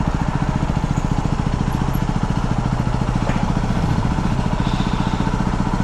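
Yamaha WR250X's single-cylinder four-stroke engine running at low, steady revs as the bike crawls along, a fast, even putter.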